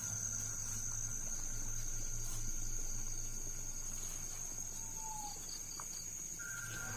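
Insects trilling steadily in one continuous high note, over a low steady hum.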